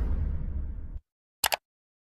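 Subscribe-button animation sound effects: the tail of a whoosh fading out over the first second, then a quick double mouse-click about one and a half seconds in.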